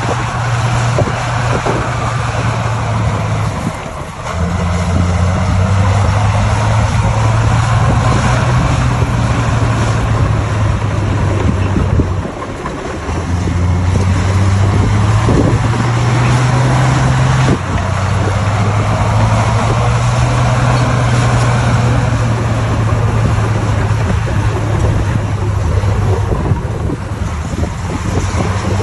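Bulldozer's diesel engine running hard as the machine works, with a steady low drone that drops away briefly twice and rises in pitch for a moment about halfway through.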